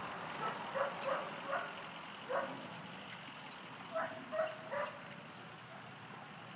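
Dog barking: four short barks, a pause of about a second and a half, then three more in quick succession.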